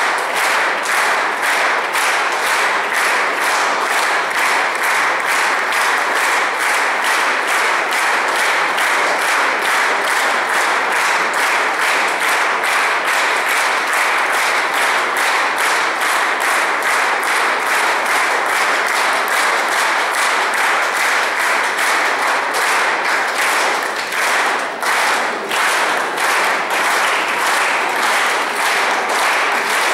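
Audience applauding in a standing ovation, clapping together in a steady rhythm of about two to three claps a second, with a short slackening near the end.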